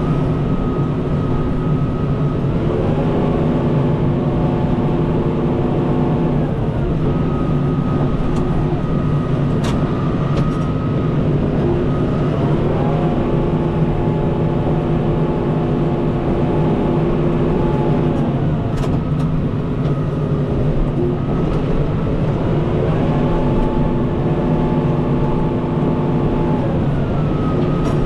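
Kubota M5-091 tractor's four-cylinder diesel engine running steadily, revving up three times and holding each surge for about four to five seconds before dropping back, as the tractor works the front snow pusher.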